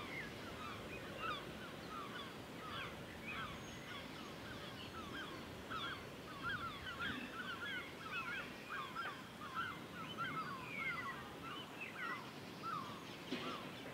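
Many birds calling at once: a steady chorus of short, overlapping chirps.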